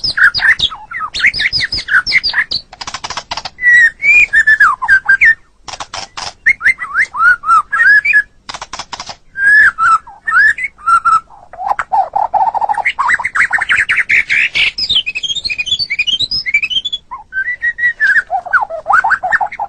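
White-rumped shama (murai batu) singing a long, varied song: clear whistled phrases that glide up and down, rapid runs of chattering notes, and short harsh rattling bursts in between.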